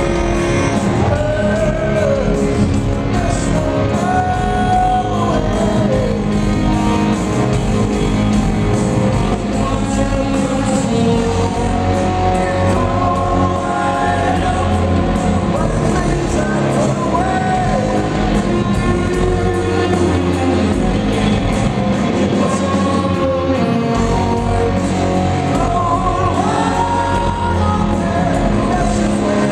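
Live rock band playing loud in a concert hall: electric guitars, bass and drums, with a sung lead vocal.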